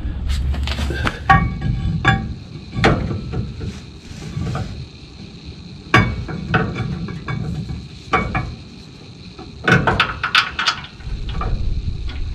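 Irregular metal clinks and knocks, several with a brief ringing tone, as a new rear brake caliper bracket on a 2008 Ford F-250 is handled and fitted against the axle behind the rotor.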